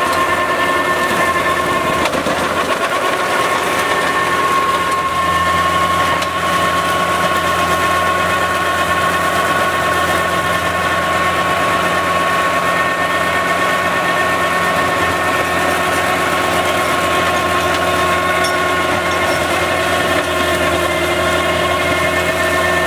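Tractor engine running steadily under load while driving a Valentini Skorpion mulcher as its rotor shreds brush and saplings; a low drone with a steady high whine over it.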